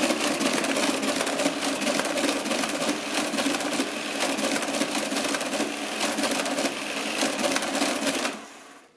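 Marchant ACT-10M electric mechanical calculator running an automatic division: a fast, continuous mechanical clatter of its motor-driven proportional gears as the carriage steps across, stopping abruptly about eight seconds in when the division is finished.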